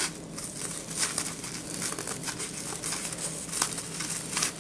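Crinkling and rustling of silver metallic deco mesh being gathered and handled, with a few sharper crackles.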